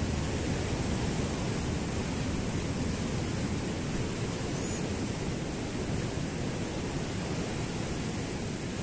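Steady rushing noise of wind and surf on a sandy beach, heaviest in the low end and unbroken.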